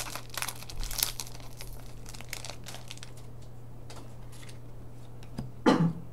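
Hockey card pack wrapper crinkling and tearing as it is opened by hand, dense crackles for about three seconds, then quieter handling of the cards. A brief louder sound near the end.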